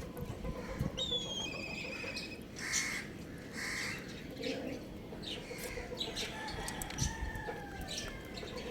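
Young rooster calling: a short, wavering high chirp about a second in, two brief calls around the third and fourth seconds, then a long, slowly falling call near the end.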